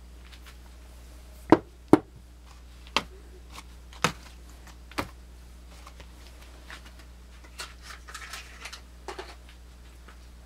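Handling of a Swiss Army knife and its packaging: five sharp clicks or knocks in the first half, the first two loudest, then softer taps and a brief rustle near the end.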